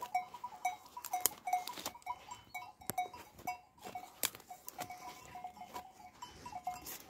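Bells on a grazing flock of sheep clanking irregularly on two or three fixed notes, mixed with scattered sharp clicks.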